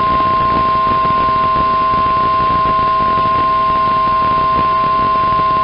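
Weather radio warning alarm tone (Weatheradio Canada's 1050 Hz alert tone): one steady, unwavering high beep held throughout over receiver hiss, with a fainter lower tone beneath it, signalling that a new warning message is about to be broadcast.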